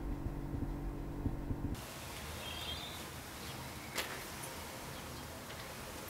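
Quiet background room tone: a steady low hum that cuts off abruptly about two seconds in, followed by an even hiss with a single faint click a couple of seconds later.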